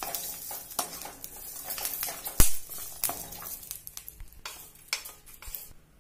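A wooden spatula stirring garlic cloves and curry leaves around a metal kadhai as they fry in a little oil, with repeated light knocks and scrapes against the pan. One sharp, louder knock comes about two and a half seconds in.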